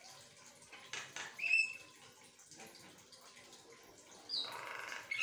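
Javan myna (jalak kebo) calling in short bursts with pauses between. About a second in there is a harsh chatter, then a short clear whistle, the loudest note. Near the end comes a high falling whistle, then a longer harsh rasping chatter.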